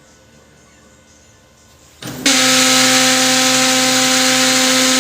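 Brother MFC-7360 laser printer's main motor and gear drive starting up abruptly about two seconds in, then running loud and steady with a hum and a rough grinding noise: the grinding of a faulty main motor gear unit.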